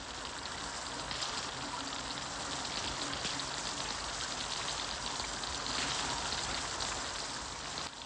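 Heavy rain falling steadily in a downpour, dripping off the eaves of a thatched roof and splashing into puddles.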